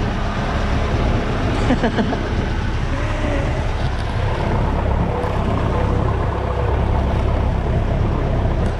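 Small fishing boat's engine running steadily at cruising speed, mixed with the rush of wind and water as the boat moves.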